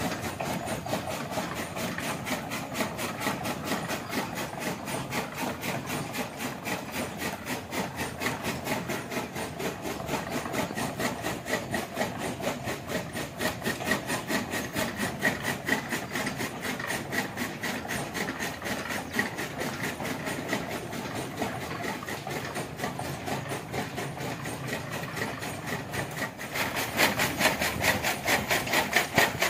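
Bull-powered gear toka machine running: its iron gearbox and fodder cutter make a steady, fast, evenly repeating clatter. The clatter grows louder and sharper near the end.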